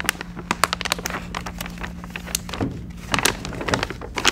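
Metallized foil shielding bag crinkling and crackling as its zip seal is pressed shut and the bag is handled, a rapid irregular run of sharp clicks and rustles.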